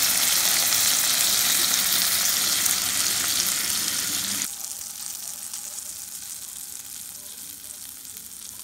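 Crappie fillets frying in butter in a pan, a loud, steady sizzle that drops abruptly about halfway through to a much fainter hiss.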